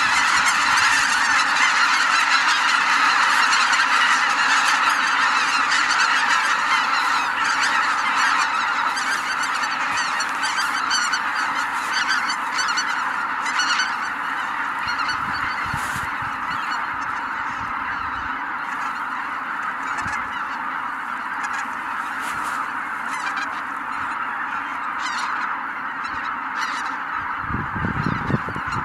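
A huge flock of greater white-fronted geese calling en masse as they take off from their roost, a dense din of overlapping honks that slowly thins and grows quieter.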